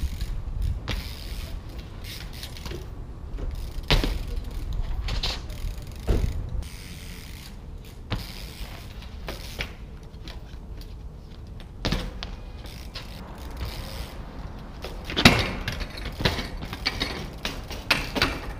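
Trials mountain bike being hopped and ridden on brick paving and a low brick wall: sharp knocks of tyres and frame landing, with the rear hub's freewheel clicking. Near the end comes the loudest knock, followed by a cluster of clatters as the bike goes down onto the paving.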